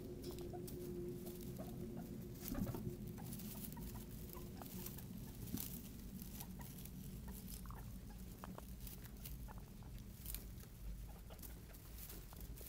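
Guinea pigs pattering and rustling about in loose hay, with scattered light clicks and ticks. A faint low hum runs under the first few seconds.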